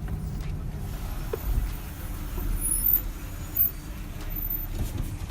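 Car running at low speed, heard from inside the cabin as a steady low rumble of engine and road noise.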